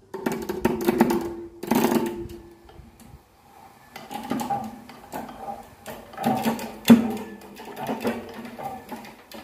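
A rope hoist lowering a bucket of crushed stone down a concrete-ring well: the rope and hoist give a run of irregular clicks and creaks with short squeaking tones, echoing in the shaft.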